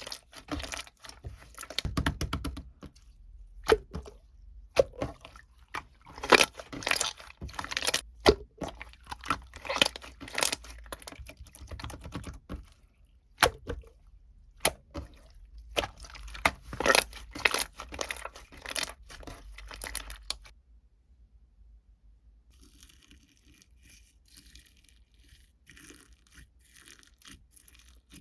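Close-up crisp crunching and crackling in quick irregular bursts, like something brittle being crushed or crinkled. It stops about twenty seconds in, leaving only faint soft rustling.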